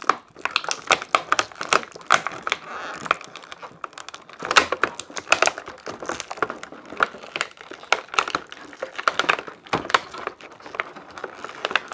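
Thin clear plastic blister tray crinkling and crackling as small parts are pried and popped out of their moulded pockets, a quick run of sharp crackles and clicks.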